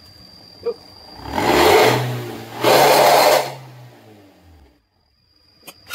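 Toyota Avanza Veloz (automatic) engine revved through an aftermarket exhaust fitted with a bolt-on "ngorok" (snoring-tone) insert. The revs rise about a second in and are held for about two seconds with two loud surges, then fall back to idle.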